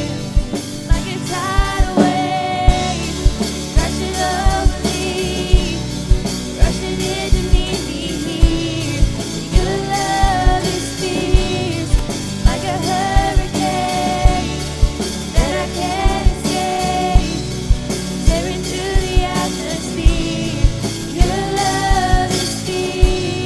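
Live worship band playing: a woman sings the lead with women's backing vocals, over a drum kit, bass and guitar, the drums keeping a steady beat.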